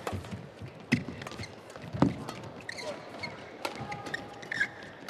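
Badminton rackets striking the shuttlecock in a fast doubles rally: sharp hits about a second apart, the loudest about two seconds in, with brief shoe squeaks on the court floor between them.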